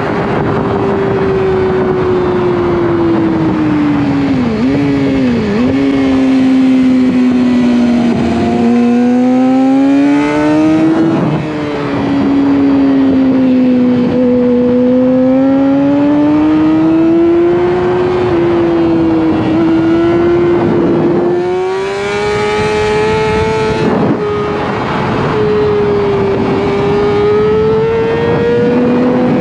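Racing motorcycle engine running hard, its pitch climbing and falling over several seconds at a time as the throttle opens and closes through the corners, with quick dips near the start. A brief rush of wind-like noise comes about three-quarters of the way through.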